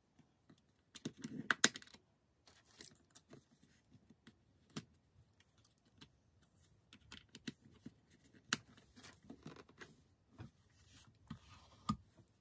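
Irregular plastic clicks and taps from handling a Salter black glass kitchen scale: a coin-cell battery pressed into its battery compartment and the cover worked, then a knock as the scale is turned over and set down on the table. The loudest clicks come about a second and a half in.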